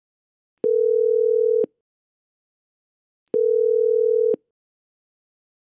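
Electronic telephone tone: a steady low beep about a second long, sounding twice, the second about 2.7 seconds after the first.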